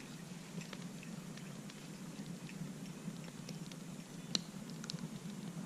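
A campfire of manzanita and fat wood crackling, with scattered small snaps and one sharper pop about four and a half seconds in.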